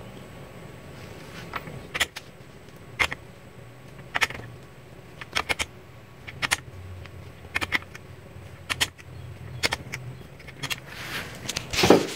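Torque wrench and socket tightening ring-gear bolts on a differential carrier: sharp metallic clicks come about once a second as the wrench is worked bolt to bolt. A louder metal clatter follows near the end.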